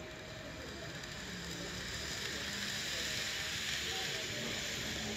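Model train running past close by on a curved track: a rolling hiss from its wheels and motor that swells to its loudest about three to four seconds in as the cars go by, then eases off.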